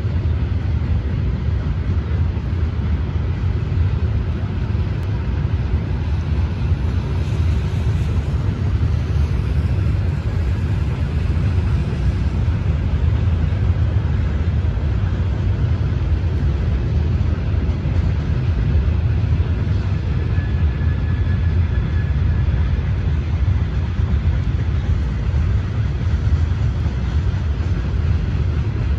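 A steady low rumbling noise with no breaks.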